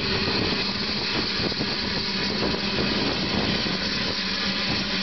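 Small saddle-tank steam locomotive moving slowly with a brake van, a steady hiss over a low hum.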